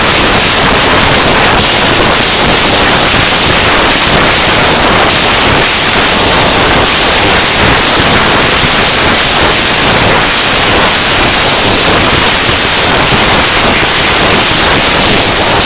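Harsh noise music: a loud, unbroken wall of static-like noise spread evenly from deep lows to hiss, with no clear pitch, beat or pause.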